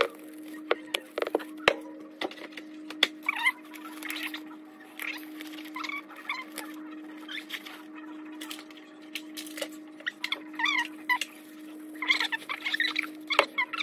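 Spice containers and a stainless steel bowl being handled while seasoning food: scattered sharp clicks and taps, with clusters of short squeaky chirps and a steady hum underneath.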